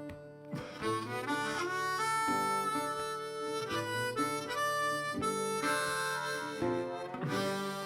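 Background music led by a harmonica, playing a melody over steady lower accompanying notes.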